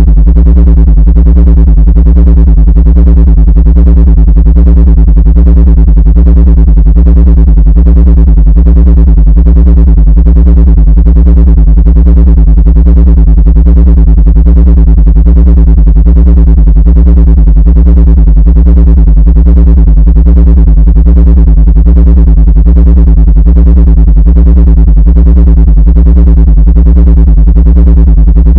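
Loud, steady, low-pitched synthesized buzzing drone with a stack of overtones and a fast, even pulsing, played as a supposed ant-repelling frequency.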